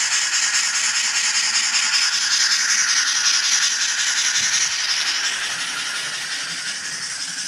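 ESU LokSound 4.0 sound decoder in a Liliput model Nord 231 steam locomotive, playing a real steam locomotive's exhaust as a fast, even run of hissing chuffs through the model's small speaker while it runs. The sound fades over the last couple of seconds.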